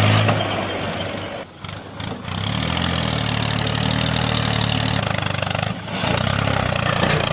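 Small electric motor of a homemade toy tractor running with a steady hum and whir, dropping out briefly twice.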